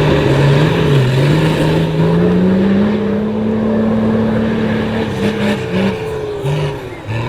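Off-road 4x4's engine revving: the pitch climbs steadily over the first three seconds and holds high, then comes a few short throttle blips before it drops away near the end.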